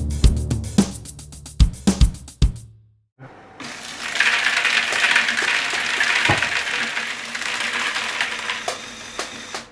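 Background music with a steady drum beat stops about three seconds in. After a brief gap comes a steady rattling hiss with scattered clicks, which fades near the end.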